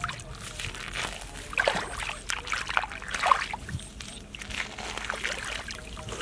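Shallow muddy water sloshing and splashing irregularly as hands and legs move through it, with small drips and trickles.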